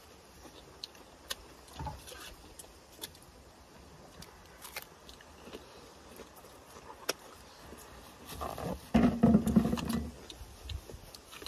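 Scattered light clicks and taps of spoons and forks against bowls and dishes during a meal, with a louder muffled burst of handling sound about nine seconds in.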